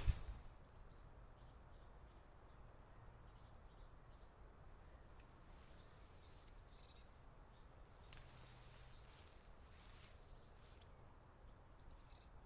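Faint outdoor quiet with a few short, high bird chirps, the clearest about halfway through and again near the end.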